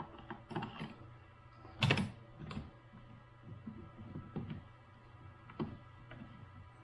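Scattered small metal clicks and knocks as locating bolts and a stepper-motor mounting plate are handled and fitted by hand, with one louder clack about two seconds in, over a steady low hum.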